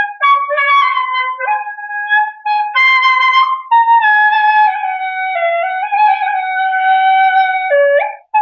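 A solo wind instrument playing a melody one note at a time. The notes are held and move in steps, with a long phrase in the second half that slowly steps downward.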